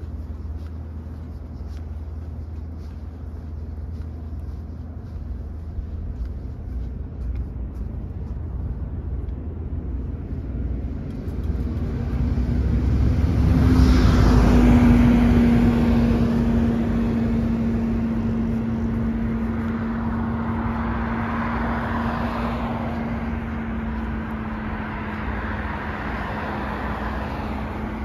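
Road traffic on a bridge. A vehicle passes close by, building to its loudest about halfway through and fading slowly, with a steady low tone carrying on after it.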